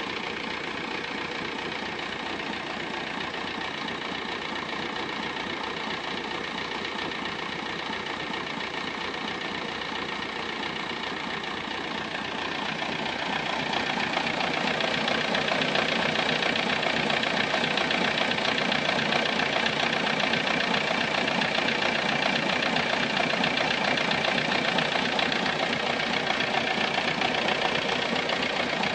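Volkswagen Golf 3 engine running steadily, then getting louder about 13 seconds in and staying at that higher level.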